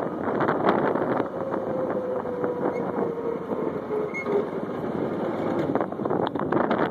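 Motorized couch running over rough ground, a steady rumble of its drive and wheels, with wind buffeting the microphone. A faint whine falls slowly in pitch between about one and four seconds in.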